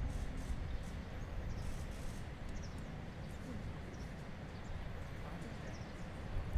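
Outdoor ambience at a training pitch: a steady low rumble like wind on the microphone, with faint, indistinct voices and a few soft high clicks.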